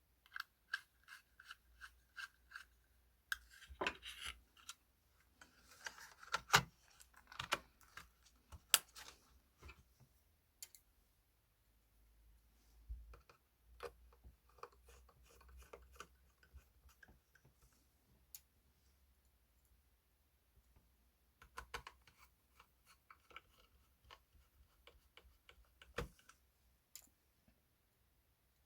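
Laptop parts being handled by hand: scattered small clicks, scrapes and rubbing of plastic and metal, in two busy spells with a quiet gap between them.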